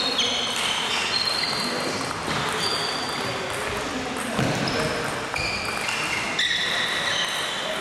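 Table tennis play from several tables in a large, echoing sports hall: balls knocking on bats and tables, heard as many short, high ringing tones at different pitches.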